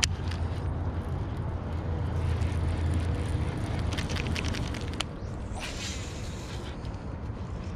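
Baitcasting reel being handled with small clicks, a sharp click about five seconds in, then the short swish of a cast with line running off the spool, over a steady low rumble.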